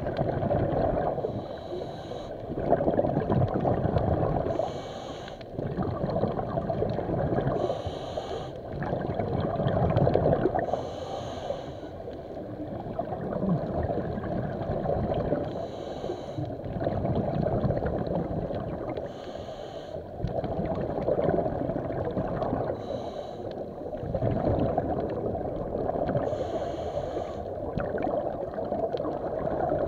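A swimmer breathing, one breath about every three seconds, over sloshing, gurgling water.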